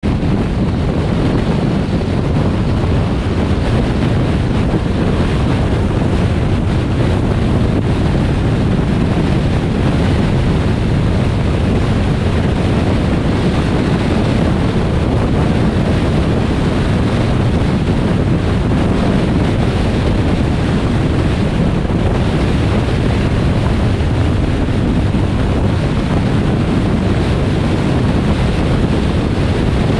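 Steady wind and road noise of a car driving at speed on a highway, with wind buffeting the microphone.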